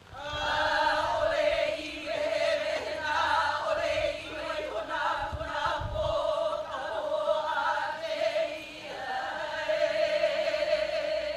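Singing held on one nearly steady pitch, with short breaks every second or two, in the manner of a chant. A few low thuds sound underneath near the middle.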